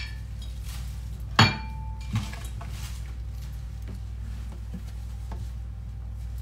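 Kitchenware clanks sharply as it is set down about a second and a half in, ringing briefly, then a lighter knock follows. A few faint taps come after it over a steady low hum.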